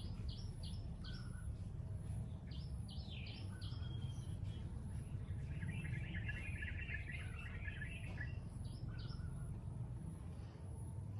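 Birds chirping in short, scattered calls, with a fast chattering trill about five seconds in that lasts some three seconds, over a steady low background rumble.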